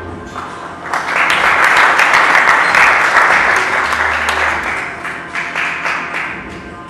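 Audience applause, swelling suddenly about a second in, holding for a few seconds and then fading away.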